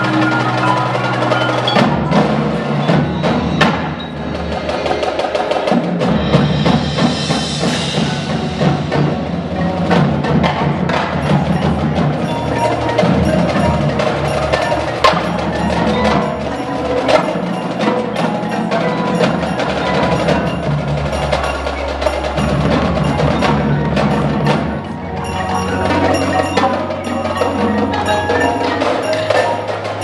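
Winter drumline performing: marching snare drums, tenor drums and bass drums playing together with front-ensemble mallet keyboards and a gong.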